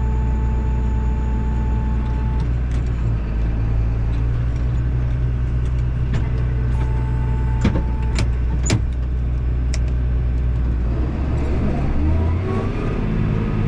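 John Deere 7810 tractor's six-cylinder diesel engine running steadily, with a few sharp clicks about halfway through and a change in engine note with a rising whine near the end.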